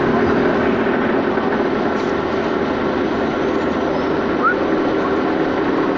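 Electro-hydraulic car lift's motor and pump running steadily as it raises a car, with a brief squeak about four and a half seconds in.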